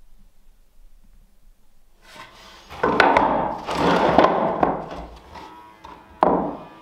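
A white oak floorboard being shuffled and pushed into place on a wooden floor, scraping and knocking against the neighbouring boards for a couple of seconds, followed by one sharp knock near the end.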